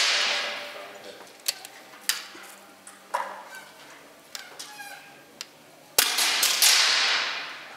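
Two air rifle shots, one at the very start and one about six seconds in, each trailed by about a second and a half of hissing echo in the range. A few faint clicks fall between them.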